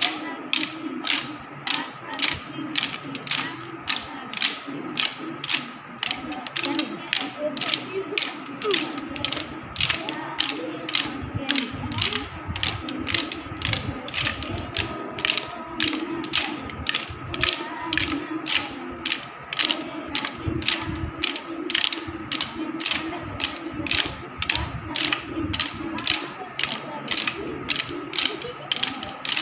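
Wooden sticks of a Santali stick dance knocked together in a steady rhythm, about two sharp clacks a second.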